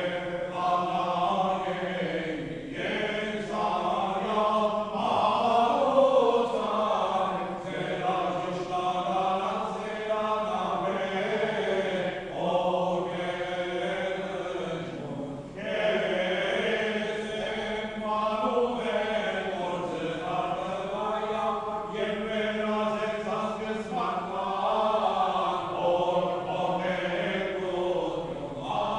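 Armenian Church liturgical chant: voices singing long melodic phrases with short breaks between them, over a steady low held note.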